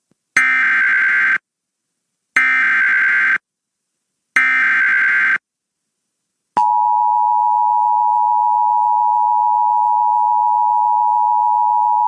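Emergency Alert System SAME header: three one-second bursts of screechy digital data, a second apart. Then, about six and a half seconds in, the steady two-tone EAS attention signal starts, announcing a National Weather Service severe thunderstorm warning.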